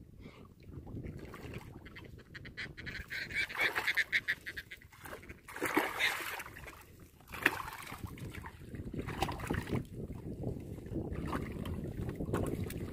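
A hooked catfish thrashing and splashing at the water's surface as it is scooped into a landing net, the loudest splash about six seconds in. Geese honk in quick repeated calls a little before the splash, over a steady rumble of wind on the microphone.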